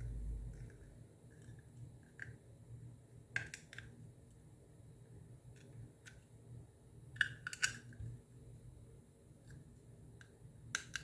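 Scattered small plastic clicks and snips from the charger's plastic case being trimmed and handled. The sharpest come about a third of the way in, twice in quick succession past the middle, and near the end.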